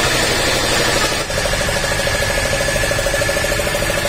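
An engine running steadily, with an even, fast pulse and a steady high whine over it.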